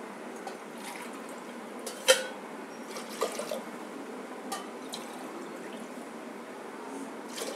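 Water poured from a steel tumbler into a pressure cooker of dry arhar dal, a steady splashing pour, with a few sharp clinks of metal vessels, the loudest about two seconds in.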